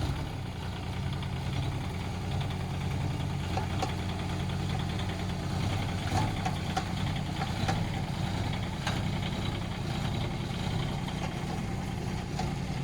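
Kubota K008-3 mini excavator's three-cylinder diesel engine running steadily at low RPM, with a few faint clicks from the machine as it works.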